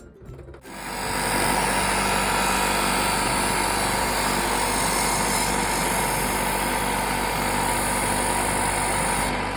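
Electric sharpening machine running steadily with a grinding hiss as a sickle blade is ground on it, starting about a second in and stopping just before the end.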